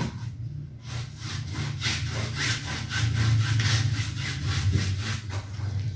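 Paintbrush scrubbing priming paint onto the cotton canvas of a wood-framed panel in quick, rhythmic back-and-forth strokes.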